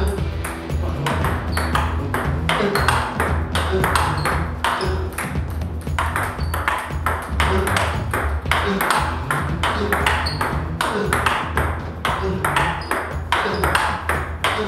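Table tennis balls struck by bats and bouncing on the table in continuous play: a steady run of sharp, hollow clicks several times a second, over a low steady hum.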